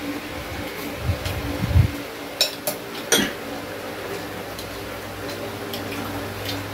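Chopsticks and spoons clicking against ceramic rice bowls at a family meal, with a few sharp clinks a little over two and three seconds in, over a steady background hum.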